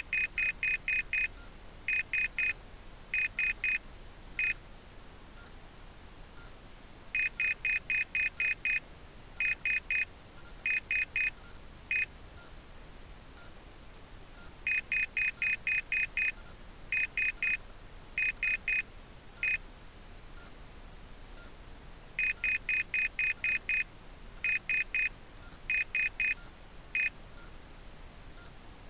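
Rocket's onboard altimeter beeping out its recorded peak altitude in digit groups: seven beeps, three, three, then one, reading 7,331 feet. The high-pitched beep sequence repeats about every seven and a half seconds over a faint steady hiss.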